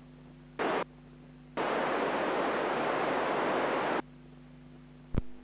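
FM radio receiver hiss on a satellite downlink: a short burst of static, then about two and a half seconds of steady white-noise hiss that cuts in and out abruptly as the squelch opens and closes. A sharp click comes near the end.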